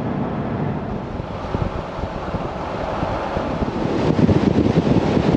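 Toyota LandCruiser 79 Series driving at highway speed: steady road and engine noise with wind buffeting the microphone, the buffeting getting louder in the last second and a half.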